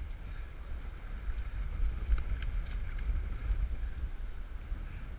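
Wind buffeting the camera microphone and water washing around a boat's hull at sea: a steady, gusty low rumble with a few faint ticks.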